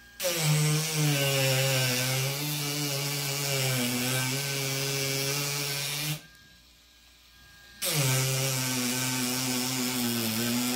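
Ryobi 4V cordless power carving tool running as it gouges a wider trough in wood, its motor pitch wavering slightly under load. It stops for about a second and a half a little past the middle, then starts again. The tool is holding up fine under the heavier cut.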